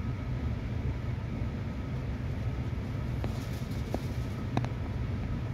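Steady low hum inside a stationary E6 series Shinkansen passenger car, its ventilation and onboard equipment running while the train is held at a station. A few faint clicks come about three to four and a half seconds in.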